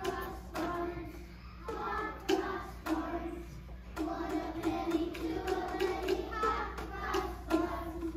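A class of young children singing a simple tune together, in short held phrases with brief gaps, with occasional sharp taps.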